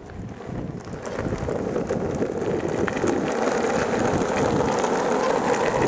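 Steady rolling rumble of skateboard wheels on an asphalt road, with wind buffeting the microphone. It swells over the first second and then holds.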